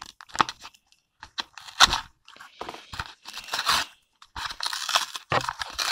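Cardboard packaging torn and peeled off by hand: irregular ripping and crinkling, with a sharp rip a little under two seconds in.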